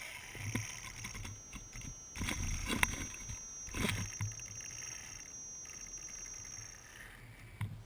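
Radio-controlled rock crawler working over rocks right above the microphone: a steady high electric-motor whine, with rough scraping and crunching of tyres and chassis on rock, loudest around two and four seconds in.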